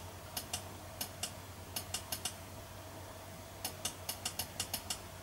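Computer mouse buttons clicking repeatedly, light sharp clicks, some in quick runs of several a second, as the zoom control of a PTZ camera's on-screen menu is pressed. A faint steady hum lies beneath.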